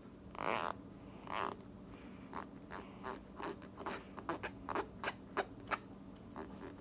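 Clear slime full of blue foam beads being pressed and poked with fingers in a plastic tub: two short squelches, then a run of sharp crackling pops and clicks, loudest near the end.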